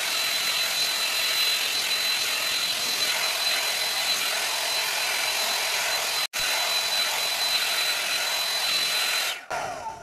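Hot air styler with a brush attachment blowing: a steady rush of air with a thin high motor whine. It breaks off for an instant about six seconds in and stops shortly before the end.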